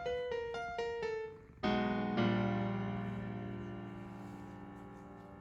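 Background piano music: a few quick notes, then a final chord struck a couple of seconds in that rings on and fades away slowly.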